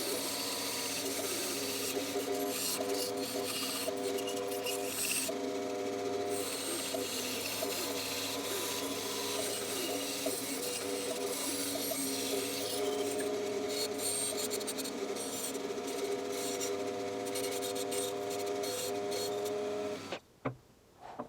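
Bandsaw running with a steady hum while its blade cuts through wood, a rough scratchy noise over the motor. The sound cuts off suddenly near the end, leaving a few faint clicks.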